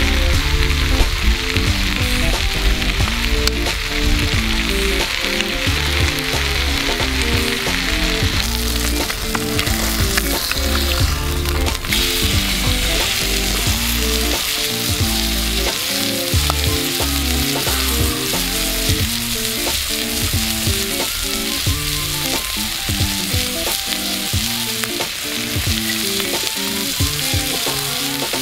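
Meat sizzling in a grill pan over a wood fire, with carbonated water just poured in and bubbling off in the hot pan. Background music with short melodic notes and a bass line plays underneath.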